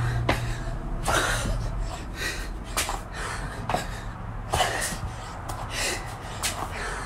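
A woman breathing hard through a set of burpees: sharp, gasping breaths every second or so, some heavier and breathier.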